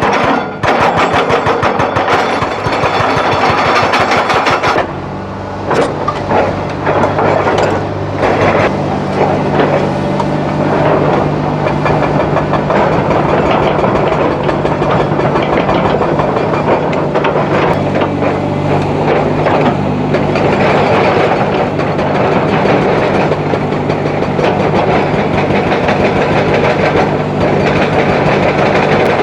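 Heavy excavator's diesel engine working, with a fast rattling clatter for the first five seconds or so, then running steadily under load with scraping and knocking noise over it.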